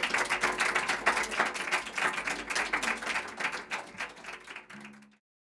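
Audience applauding at the end of a live song, with the last acoustic guitar chord still ringing faintly underneath. The clapping fades and cuts off suddenly about five seconds in.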